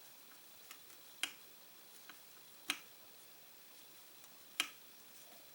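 A few sharp clicks at uneven intervals: three clear ones about a second and a half to two seconds apart, with a couple of fainter ones between.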